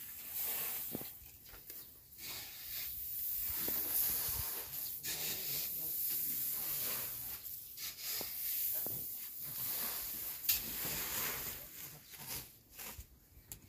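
Loose paddy rice hissing and rustling as it is scooped and poured into a woven plastic sack, in repeated surges with short pauses between them.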